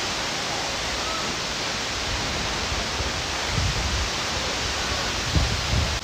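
Steady rushing hiss of Wli Waterfall, with low rumbling bumps on the microphone about three and a half seconds in and near the end.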